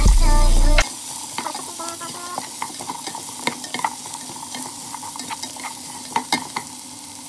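Background music that cuts off about a second in, then bacon grease sizzling steadily in a frying pan, with scattered sharp clicks of a utensil against the pan.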